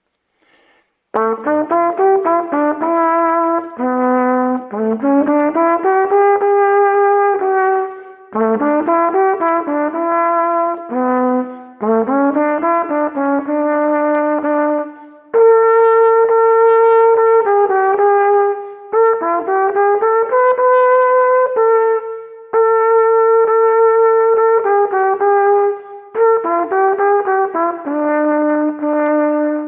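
A solo brass instrument playing a melody in phrases with short breaks between them, the later notes held longer. The last note is held and rings out in the room.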